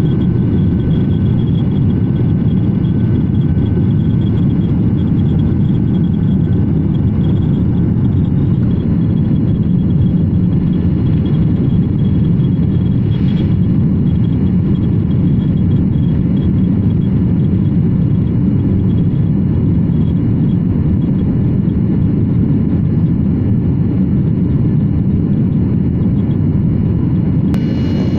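Steady roar of a Boeing 737's jet engines and rushing air heard inside the cabin during the climb after takeoff: a deep, even rumble with a faint high whine above it.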